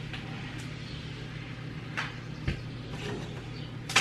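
Butter melting in a hot nonstick skillet, with a faint sizzle and a few soft ticks over a steady low hum.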